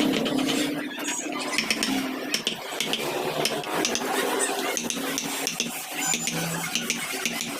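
Hand wood carving with steel chisels: a rapid, irregular run of small taps, clicks and scrapes as the tools cut into the wood, over a low steady hum.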